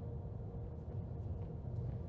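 Low, steady room rumble with a faint steady hum: the background noise of a large auditorium picked up through the microphone.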